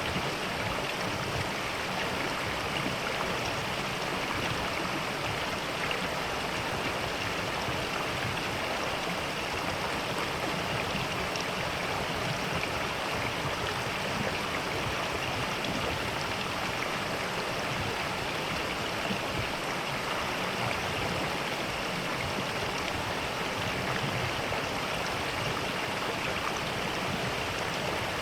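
Mountain valley stream running with a steady rush of water.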